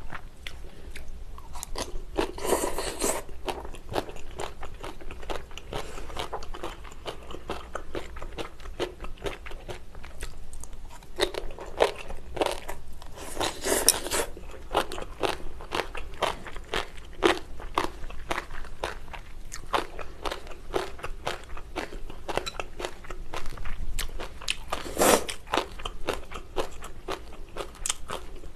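Close-up chewing and crunching of crisp radish salad and braised kimchi with pork, with louder bursts of crunching about two seconds in, midway, and near the end.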